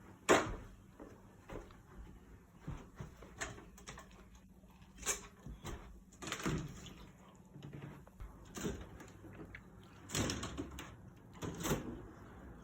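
Irregular knocks, bumps and short scrapes of household things being handled and moved while tidying a room. The sharpest, loudest knock comes right at the start.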